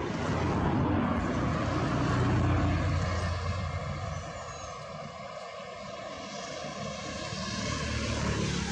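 A motor engine drone that swells in the first couple of seconds, eases off, and builds again near the end.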